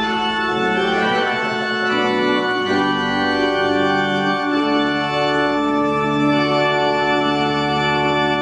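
Church organ playing slow, sustained chords, the harmony changing every couple of seconds.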